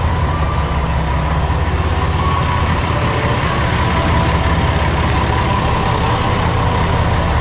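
Diesel engine of a JR Sakai Line KiHa 40-series railcar running steadily: an even low hum with a thin steady whine above it.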